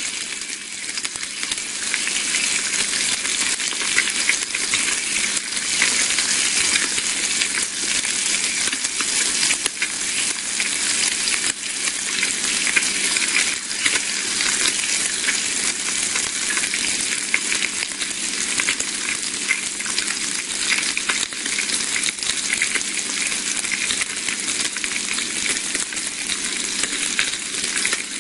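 Bacon sizzling in a pan: a steady hiss of frying fat, dense with fine crackles and pops.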